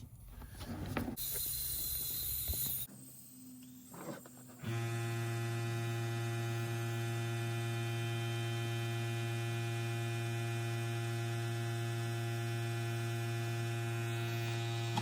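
Air compressor pressurising a PEX plumbing test to 100 psi: a short rush of air hiss about a second in, then from about five seconds in a steady electric motor hum with many overtones.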